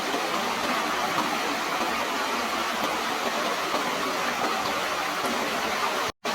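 Steady rushing of running water, an even hiss with no distinct splashes, cutting out completely for a split second near the end.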